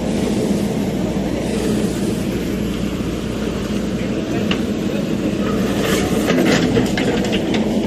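Diesel engine of a JCB 3DX backhoe loader running steadily at work, with a run of sharp clanks and knocks in the second half.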